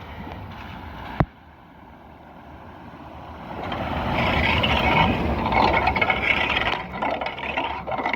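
A vehicle driving through deep floodwater on the road, its tyres swishing and splashing the water, swelling from about three seconds in and staying loud for several seconds. A sharp click about a second in.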